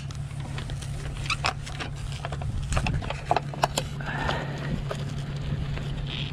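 Metal clicks and rattles from a boat trailer's bow winch as its strap and hook are unfastened from a jet ski's bow eye, with a short rubbing of the strap about four seconds in. A low steady hum runs underneath.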